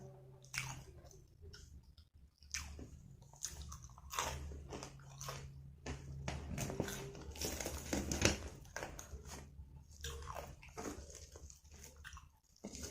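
Close-miked eating: chewing with irregular sharp crunches of crunchy food.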